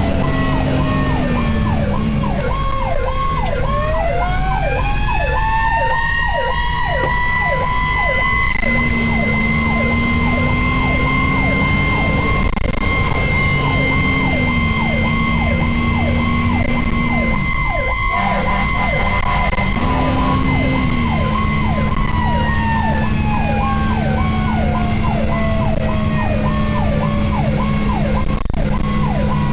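Fire engine's electronic siren on a fast yelp, with a second, mechanical siren that winds up a few seconds in, holds a steady wail, and winds slowly down after about twenty-two seconds, over the rig's engine.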